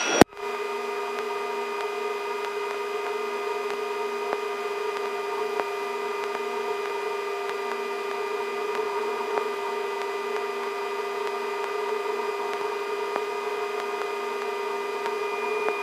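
Steady whine of the twin-turbine S-64 Skycrane helicopter's engines and drivetrain heard in the cockpit: several constant tones over an even hiss, unchanging throughout.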